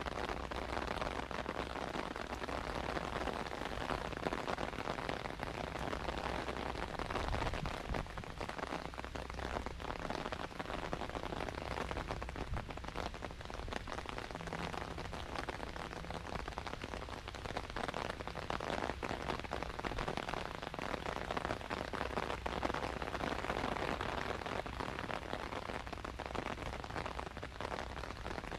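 Steady rain falling, with a dense patter of close drops.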